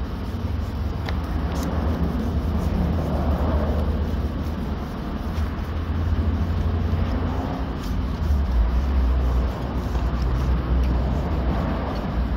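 Sanding block rubbed by hand over wet car-door paint, over a steady low rumble.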